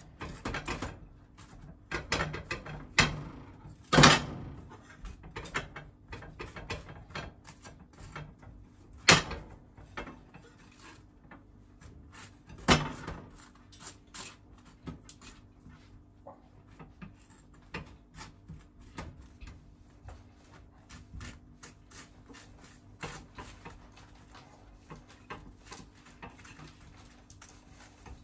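Table knife scraping a spread across crisp toasted germ bread: a long run of dry, scratchy clicks, with a few louder sharp clicks in the first half and quicker, lighter scraping after.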